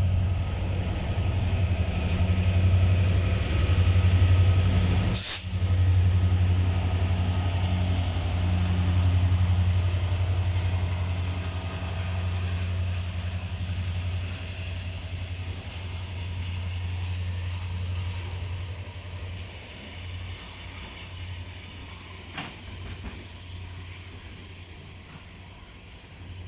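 Freight train rolling past at close range: a steady low rumble of wheels on rail that slowly fades as the cars go by, with a high hiss swelling in the middle. A sharp bang about five seconds in and a smaller one late on.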